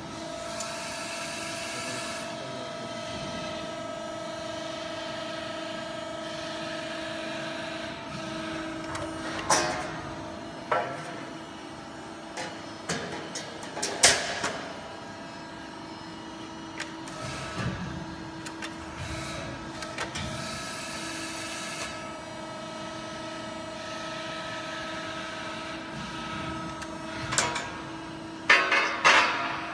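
Hydraulic press brake (Dener Smart XL 135/30) running, its pump unit giving a steady hum, with a hiss twice as the machine cycles and several sharp metallic clanks of the steel sheet being handled and bent, the loudest about fourteen seconds in and near the end.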